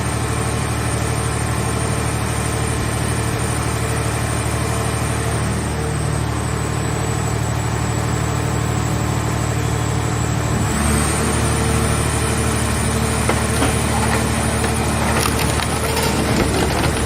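Scrap car baler's hydraulic power unit running with a steady hum and a high whine. About eleven seconds in, its note shifts as the press takes load, and crackling and creaking follows as scrap car body metal is crushed.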